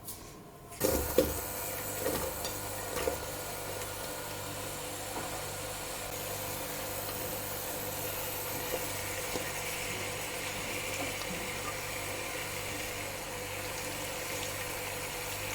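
Ingredients frying in hot sunflower oil in a pan: the sizzle starts suddenly about a second in with a few knocks, then runs steadily.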